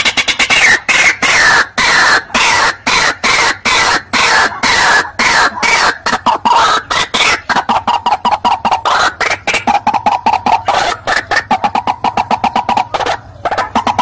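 White-breasted waterhen (ruak-ruak) calls played as a bird lure: loud, rapid croaking notes repeated about three or four times a second, the pitch sliding down over the first few seconds and then holding steady, with a brief break near the end.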